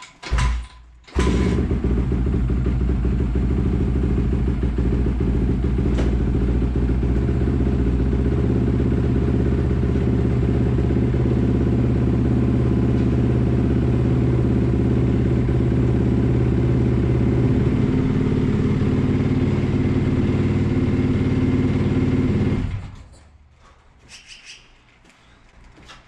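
Four-stroke dirt bike engine starts about a second in and idles steadily, then cuts off sharply near the end. It is running on freshly changed oil so the oil cycles through the engine and any leaks show.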